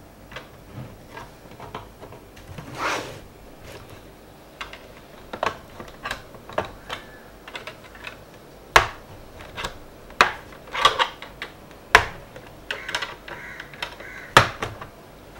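Snap-fit clips of an Asus X541UA laptop's bottom case clicking loose one after another as a screwdriver pries along the seam. Small scattered clicks come first, then four sharp, loud snaps in the second half.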